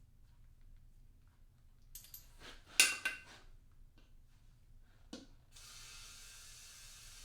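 Metallic clinks and clatter of hard objects being handled, loudest about three seconds in, then a single knock; a steady hiss comes in near the end.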